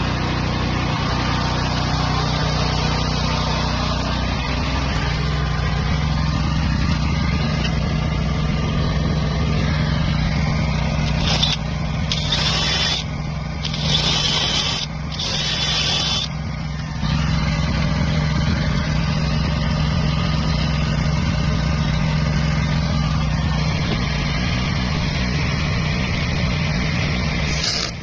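Welding machine running with a steady electrical hum and hiss, broken off briefly a few times near the middle.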